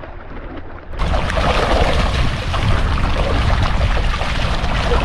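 Steady rush of wind and water noise aboard a boat at sea, with no clear pitched engine note. About a second in it jumps suddenly to a louder, fuller rush.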